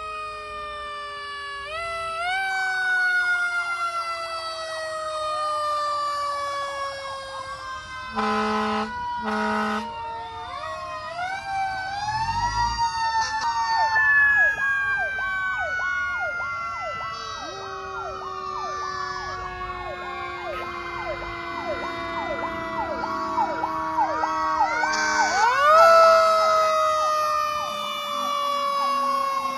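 Several fire trucks' sirens sounding together as they pass: long wails falling slowly in pitch, overlapped by faster up-and-down yelping sirens. Two short horn blasts come about eight seconds in, and the sirens rise again near the end.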